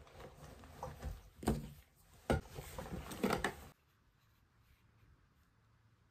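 Cloth rustling and small objects knocking on a table as a canvas tote bag is handled and packed, with a few sharp knocks. It cuts off abruptly about three and a half seconds in, leaving faint room tone.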